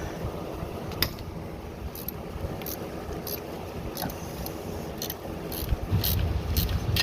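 Hand tools working the M12 AC compressor mounting bolts, with irregular metallic clicks of a ratchet wrench and one sharper click about a second in.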